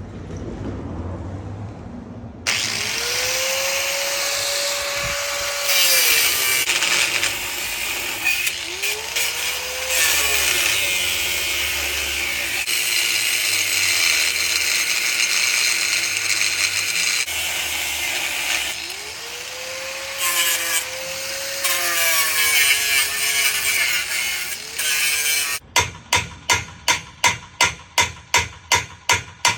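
A power tool runs in long stretches, its motor pitch rising, holding and falling away several times. Near the end comes a fast, even run of sharp knocks, about four a second.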